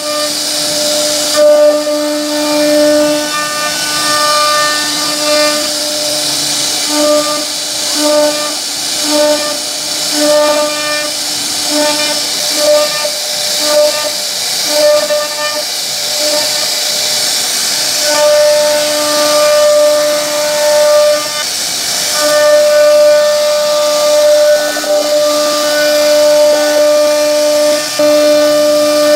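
CNC router spindle whining steadily as its bit cuts grooves into a wooden board, over a hissing cutting noise. The whine swells and fades about once a second through the middle part and holds steadier near the end.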